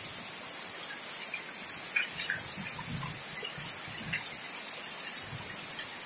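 Steady rain falling on trees and a wet yard: an even hiss with scattered ticks of single drops landing close by.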